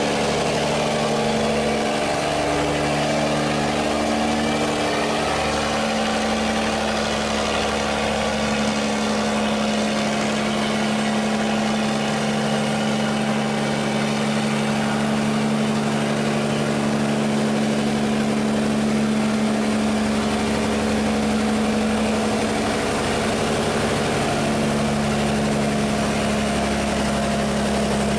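Sand barge's diesel engine running steadily at a constant hum while the barge moves through a sluice gate, with fast water rushing and churning around the hull.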